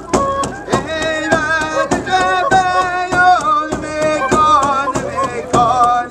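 A man singing a goose dance song over a steady drum beat.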